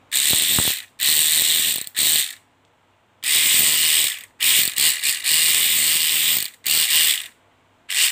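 Corded electric ratchet wrench with a 1/4-inch drive head, run in about eight short bursts of half a second to a second each as the trigger is pulled and released, motor and ratchet head whirring.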